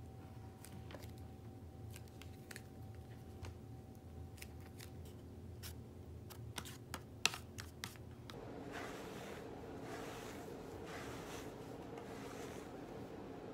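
Small plastic clicks and taps as hair dye is squeezed from a tube into a plastic tray and stirred with a tint brush, with a few sharper taps around seven seconds in. After about eight seconds, the soft repeated swish of a hairbrush stroking through long hair.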